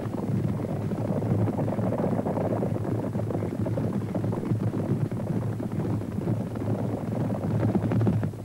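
Hooves of a galloping wildebeest herd: a dense, continuous rumble of many hoofbeats on dry ground.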